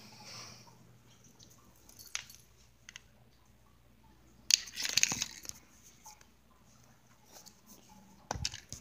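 Close scuffling and rustling with scattered clicks. A louder noisy rustle comes about halfway through, and two sharp knocks near the end.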